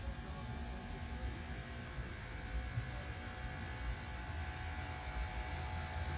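A steady low hum and rumble with a faint hiss, holding a few thin steady tones, with no distinct events.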